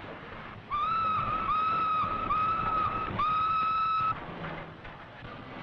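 Steam locomotive whistle sounding four short blasts of one steady pitch, the last a little longer, over the hiss and rumble of the engine.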